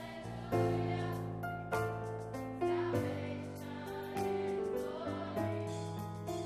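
Youth gospel choir singing with instrumental accompaniment, sustained chords changing about once a second with sharp accented attacks.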